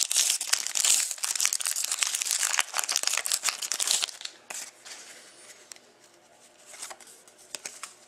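Foil trading-card pack torn open and crinkled by hand, a dense crackling for about four seconds. After that, only faint rustling as the cards are slid out and handled.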